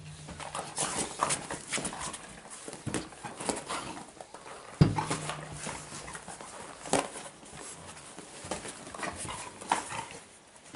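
Two dogs play-wrestling on a vinyl dog bed: scuffling, paws scrabbling and rustling on the bed and blanket, with scattered knocks. A heavy thump about five seconds in is the loudest sound, and a sharp knock follows near seven seconds.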